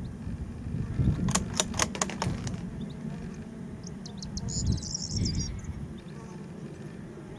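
Bolt of a Bergara .22LR bolt-action rifle being worked after a shot: a quick run of metallic clicks about a second in. A bird chirps briefly a few seconds later, over a steady low wind rumble.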